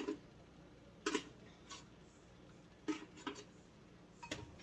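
A utensil tapping and scraping inside a nearly empty grape jelly jar to get the last of the jelly out: about six light, irregular clicks, roughly a second apart.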